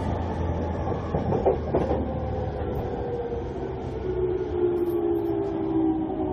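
Onboard running sound of a JR E231-500 series electric train: the whine of its Mitsubishi IGBT-VVVF inverter falls slowly in pitch as the train brakes into a station, over a low rumble, with a few wheel clicks over rail joints about a second or two in.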